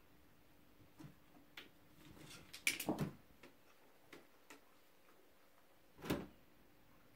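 A cat pawing at a plastic tiered puzzle feeder to work dry food out of it: scattered light clicks and taps on the plastic, a quick run of louder clicks about three seconds in, and a duller knock about six seconds in.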